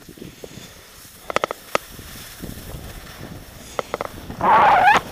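Skis sliding on groomed snow with a low rumble, a few sharp clicks about a second and a half in, and a loud hissing scrape near the end as the skis bite into the snow.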